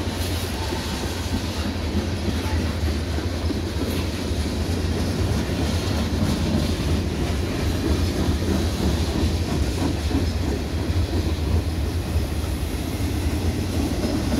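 Freight train cars rolling past close by: a steady rumble of steel wheels running on the rails.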